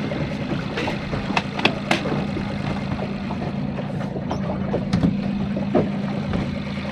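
Speedboat's four-stroke outboard-style engine running with a steady hum, its cover still open, with a few light clicks in the first couple of seconds and again about five seconds in.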